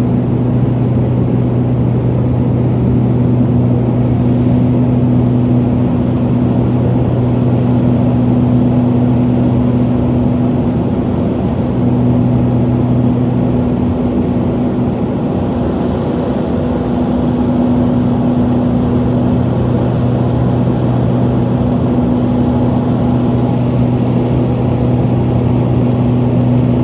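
Harbin Y-12E's twin turboprop engines and propellers heard from inside the cabin during descent: a loud, steady drone with a low hum and a higher steady tone over a rushing noise, easing slightly about halfway through.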